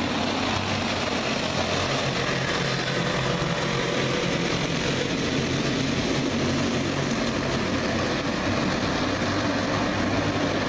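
A pack of dirt-track racing karts with small single-cylinder clone engines running at racing speed, their engines blending into one steady overlapping drone.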